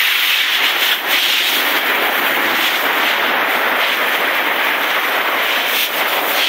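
Garden hose spraying water onto a hard floor: a steady, loud hiss of water.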